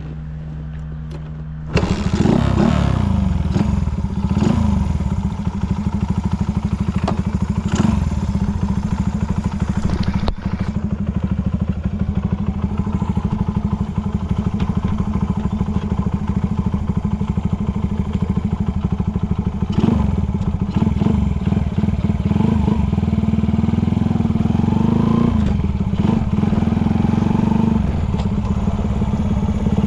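Honda Ape 50's Takegawa bored-up four-stroke single-cylinder engine running through a short exhaust, with no unusual noises. It gets much louder about two seconds in. It runs steadily with a few brief throttle blips, rising in pitch in the last few seconds.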